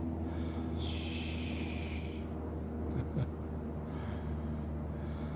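A person breathing close to the microphone, with one hissing breath about a second in and two quick clicks of camera handling about three seconds in, over a steady low hum.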